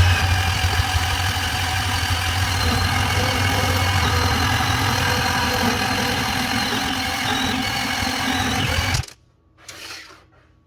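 Milwaukee 2429-20 12-volt cordless band saw running and cutting through schedule 40 pipe: a steady motor whine with blade-cutting noise that cuts off suddenly about nine seconds in as the cut ends. A short rustle follows near the end.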